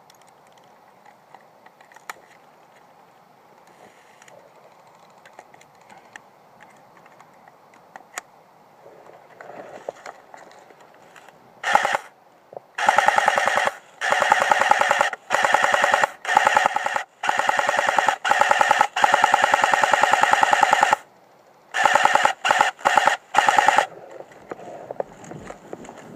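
Airsoft gun firing full-auto in a string of bursts of rapid, even clicks, the longest burst about three seconds, after a quiet stretch of about twelve seconds.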